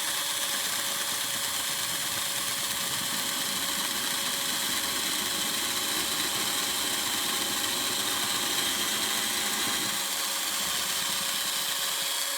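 Electric drill running at a steady speed as it bores out a crooked nail hole in the wooden hive-body corner, a constant whine that cuts off suddenly at the very end.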